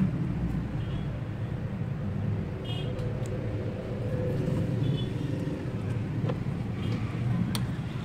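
Steady low background rumble with a few light clicks and taps scattered through it.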